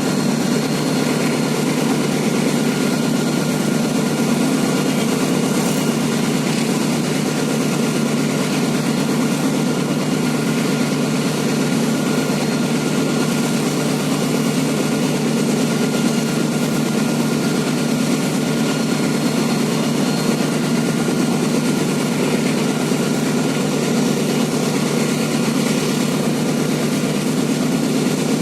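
GE CM20EMP (CC 206) diesel-electric locomotive engine running steadily: a deep, even drone with faint steady high tones above it.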